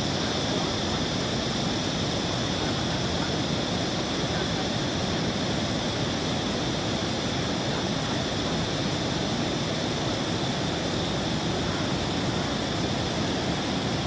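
Steady, unbroken rushing of a large Mekong waterfall's cascades and white-water rapids, with a thin high-pitched buzz held steadily over it.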